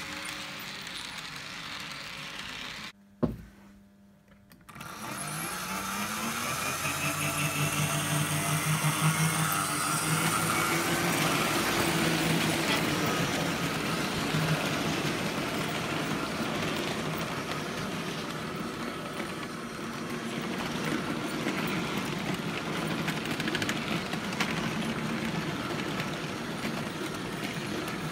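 Märklin model train running on the layout: a steady clatter of wheels on track with a low hum. The sound cuts out briefly with a click about three seconds in, then carries on.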